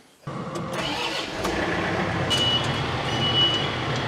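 John Deere tractor engine starting, coming in abruptly and settling into a steady run. A high thin beep sounds from about two seconds in, breaking off briefly partway.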